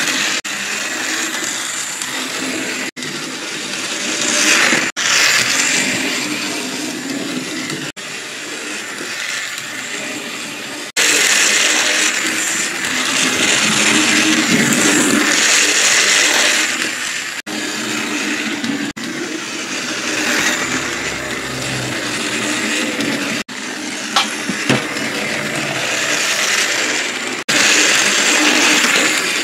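Motorized Trackmaster Troublesome Truck running along plastic toy track: its small battery motor and gears whirring steadily with the wheels rattling on the track, breaking off briefly several times, with a couple of sharp clicks near the end.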